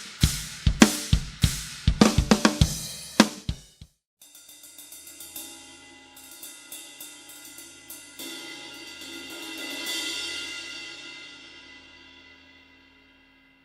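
Handmade Chinese cymbals struck in a quick series of about nine crashes. After a short pause, a cymbal is played with light, rapid strokes that swell to a loud ringing peak and then die away.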